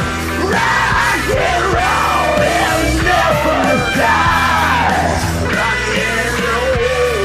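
Hard rock music playing loud and steady, a karaoke recording with a voice over the backing track.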